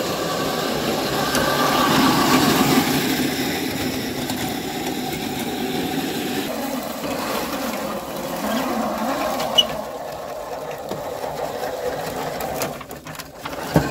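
Small electric tracked vehicle running: its 775-size motors and Delrin gear transmission whine steadily, the pitch wavering as the speed changes. A few sharp clicks come near the end, and then the sound drops away.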